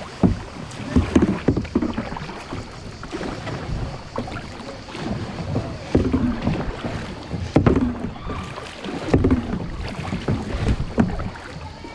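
Kayak paddle dipping and pulling through shallow river water in repeated strokes, about one every second or two, with wind buffeting the microphone.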